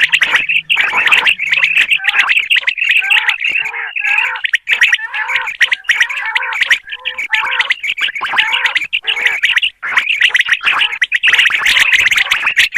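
Common quail calling: a dense run of quick, high chirping notes that overlap one another, broken by short pauses.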